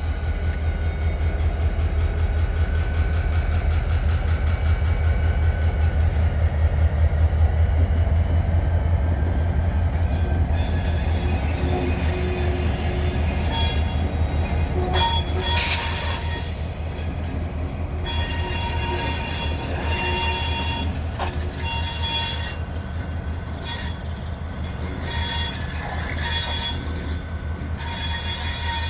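Freight train rolling past, a steady low rumble from the cars on the rails, with high-pitched wheel squeal coming and going through the second half.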